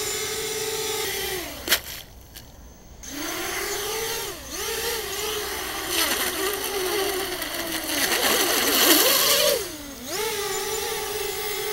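Swellpro Spry+ quadcopter's motors whining at hover, then winding down about a second and a half in as the drone drops onto the water with one sharp splash. The motors spin back up with a wavering pitch, churning a loud hiss of spray from the water near the end, then settle into a steady hovering whine.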